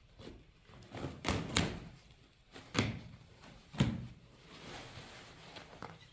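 A few sharp knocks and thuds, about four, with quieter handling and rustling between them.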